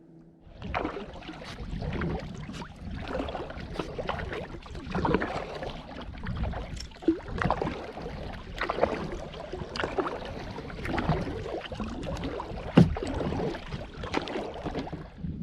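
Kayak being paddled: irregular paddle strokes splashing in the water over a steady rough wash of water and wind noise.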